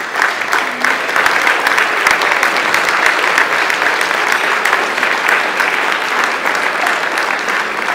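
Audience applauding: a dense mass of many hands clapping that swells in the first second and eases slightly toward the end.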